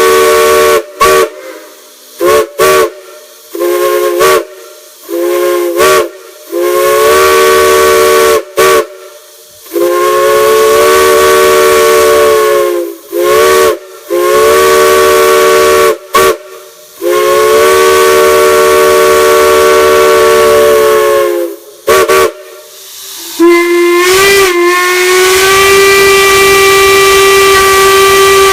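Chime whistle blowing a chord of several notes at once: a string of short toots, then two long blasts of about three and four seconds whose pitch sags as each closes off, with hiss between the blasts. Near the end a second, single-note whistle comes in with a rising start and holds one steady tone.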